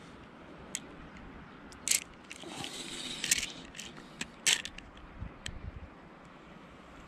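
Spinning reel being cranked while reeling in a hooked carp: the whirr of the reel's gears, broken by irregular sharp clicks and scrapes.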